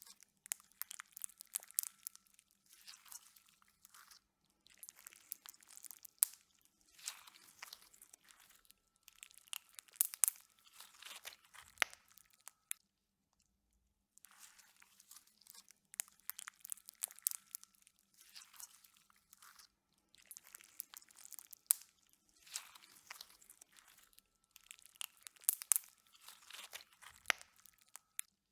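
Slime being squished and pressed, giving clusters of crackling, popping clicks about a second long with short pauses between them. A little under halfway through, the sound stops for about a second, then starts again.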